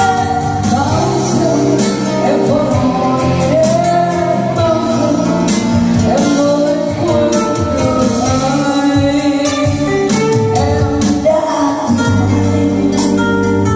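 A woman singing a Vietnamese ballad live into a handheld microphone through a PA system, accompanied by a strummed acoustic guitar.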